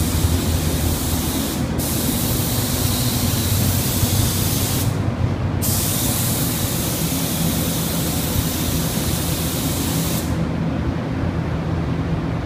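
Gravity-feed paint spray gun hissing as it sprays, in three long stretches of hiss with short breaks between them, the last one stopping about ten seconds in. A steady low rumble runs underneath.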